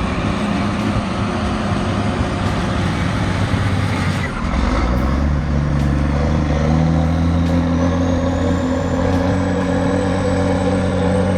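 Heavily loaded logging truck's diesel engine labouring under load as it climbs a steep slope. The engine note shifts about four seconds in and then holds steady.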